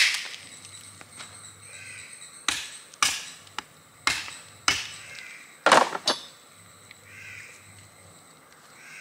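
A hand axe chopping a buffalo leg bone on a wooden chopping block, about seven sharp whacks at uneven intervals, splitting the bone open for its marrow. Crows caw faintly a few times in the background.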